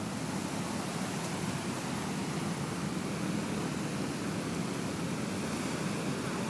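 Steady, even hiss of surf washing on the beach, with no breaks or single wave crashes standing out.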